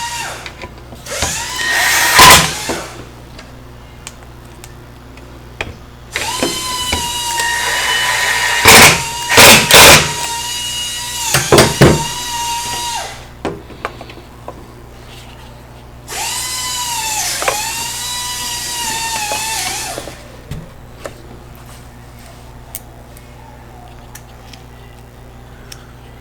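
A cordless drill/driver running screws into the leaf blower's plastic housing. There are three runs of a steady motor whine, the pitch dipping now and then as the screws tighten, with several loud, sharp clacks during the first two runs.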